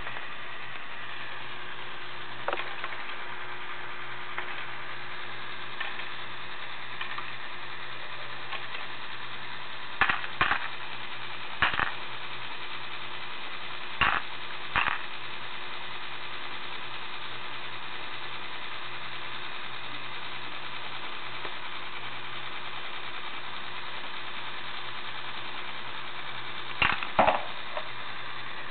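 Lego Technic bucket wheel excavator's motor and plastic gear train running with a steady whir, with a few sharp plastic clicks and knocks, in pairs around ten to fifteen seconds in and again near the end.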